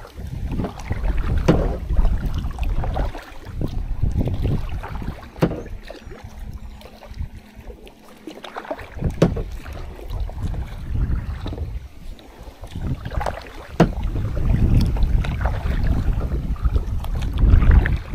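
Kayak paddle strokes splashing in river water, with wind rumbling on the microphone.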